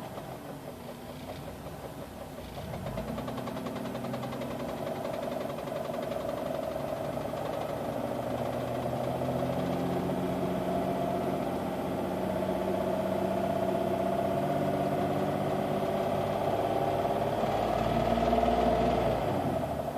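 Jeep Grand Cherokee engine running with a knock, its speed rising a few seconds in and falling back near the end. The owner places the knock toward the front, mid to upper part of the engine rather than at the flexplate.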